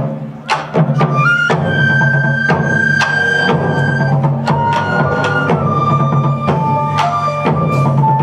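Live instrumental music: Japanese taiko drums struck in a steady beat of about two hits a second, joined by bass guitar, keyboard and drum kit, with a held melody line over a sustained low bass part.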